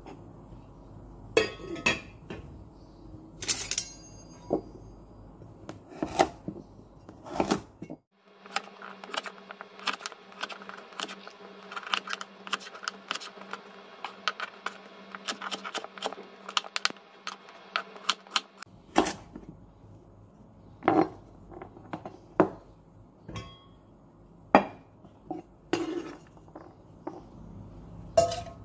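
Small knife cutting a carrot on a wooden cutting board: scattered sharp knocks of the blade on the board, with a long run of rapid chopping in the middle.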